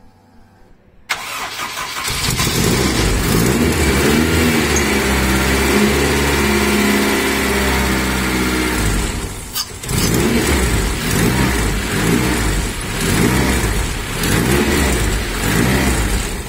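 Freshly built Honda K20A2 2.0-litre inline-four, with high-compression pistons and stage 3 cams, cranked by the starter about a second in. It catches and runs on its first start-up, revving up and down unevenly as the throttle is worked by hand. The sound dips briefly about halfway through and then picks up again.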